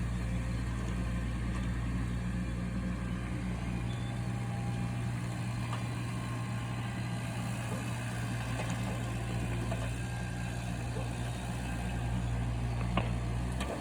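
A distant engine idling steadily, a low even drone with no change in speed.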